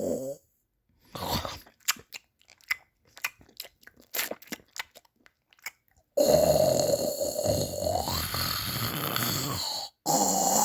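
Loud snoring cuts off abruptly, then about five seconds of scattered sharp crunching clicks follow. About six seconds in, the loud snoring starts again just as suddenly and breaks off briefly near the end.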